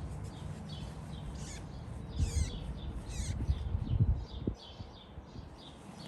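Small birds chirping: a steady run of short, high chirps, many falling in pitch. A few low bumps sound under them in the middle.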